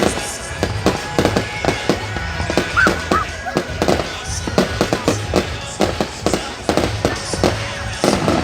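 Fireworks going off in a rapid, irregular string of bangs, several a second, with music underneath.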